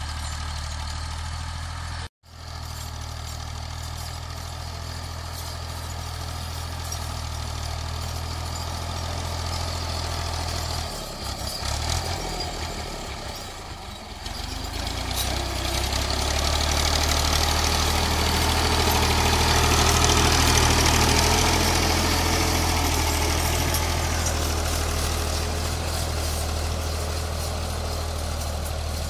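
Fiat 480 tractor's three-cylinder diesel engine running steadily while pulling a cultivator through the soil. The sound cuts out for an instant about two seconds in and grows louder about halfway through, as the tractor comes close.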